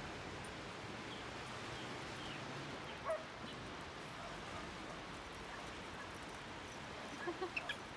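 Steady outdoor hiss of seaside wind and distant surf, with one short call about three seconds in and a quick run of four short calls near the end.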